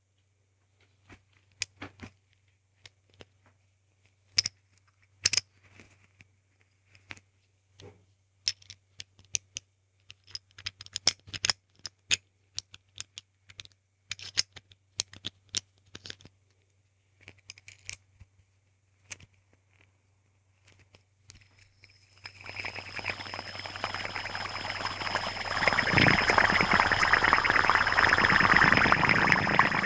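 Hand spinner handled close to the mic, with scattered light clicks and taps. About two-thirds of the way in it changes to a dense, steady whirring with a high ringing tone that grows louder.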